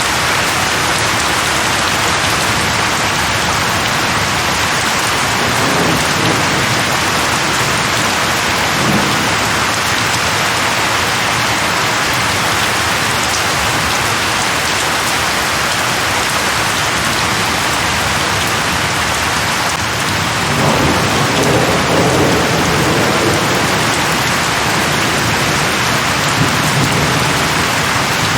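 Steady rain falling on leaves, with low rolls of thunder about six seconds in and again around twenty seconds in.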